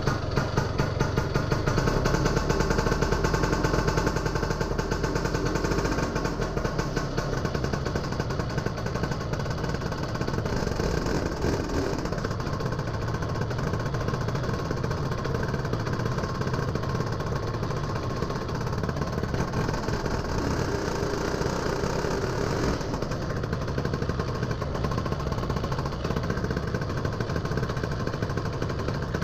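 Lambretta GP125's single-cylinder two-stroke engine idling steadily with a rapid, even firing beat, just started from cold and warming up. It is a little louder in the first few seconds.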